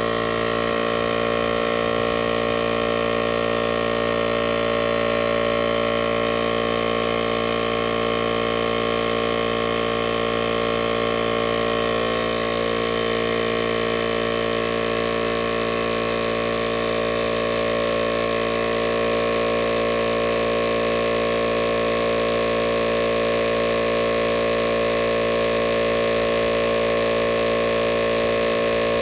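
ARB CKMP12 portable 12V air compressor running steadily, pumping air into an off-road tire to raise it from 15 psi toward 32 psi. It makes a constant, even motor-and-pump drone.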